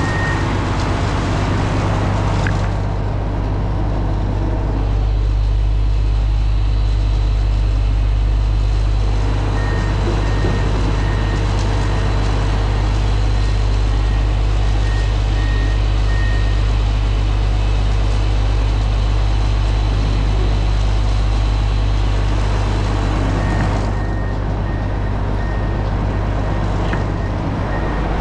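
Diesel truck engine idling steadily with the idle raised. A backup alarm beeps in short, evenly spaced pips in two runs, from about ten seconds in and again near the end.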